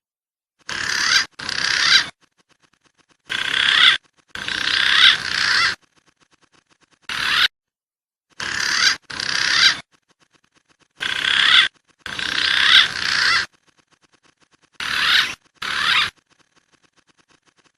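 Recorded lure calls of wild fruit-eating pigeons (green pigeon, fruit dove and imperial pigeon types): about a dozen short calls, mostly in pairs. Each call grows louder and then cuts off sharply, with silent gaps between.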